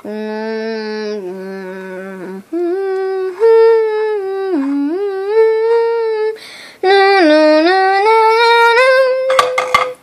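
Vocal sound effects: a voice humming long held, buzzy tones in three stretches, each holding steady, dipping and gliding, and climbing in pitch near the end. A few sharp clicks sound just before it stops.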